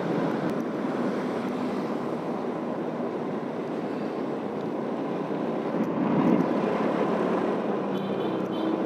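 Motorcycle on the move: a steady mix of engine and road noise with wind on the microphone, a little louder about six seconds in.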